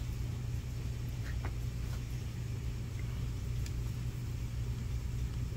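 Steady low hum of running machine-shop equipment, with a couple of faint light clicks.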